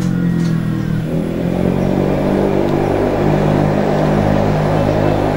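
An engine running steadily, a low hum with rumble that shifts slightly in pitch partway through.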